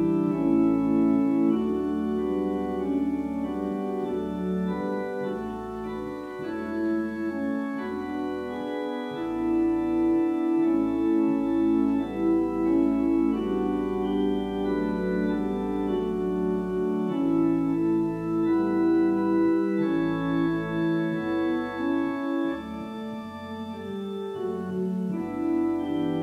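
Organ music: slow, held chords that change every second or two over a sustained low bass line.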